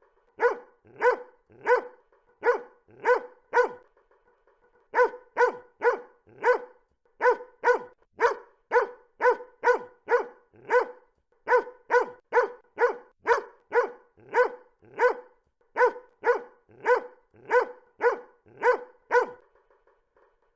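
A dog barking over and over in a steady run of about two barks a second, with a break of about a second some four seconds in.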